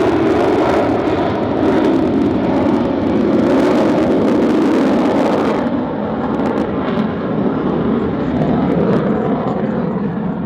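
F/A-18 Hornet's twin jet engines running loud and steady during a slow-speed pass overhead. The higher hiss drops away suddenly about halfway through while the lower roar continues.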